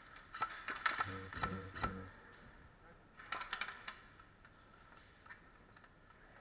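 Sharp clicks and knocks in two clusters: a loose run of clicks and thuds in the first two seconds, then a fast run of about half a dozen clicks a little past three seconds in.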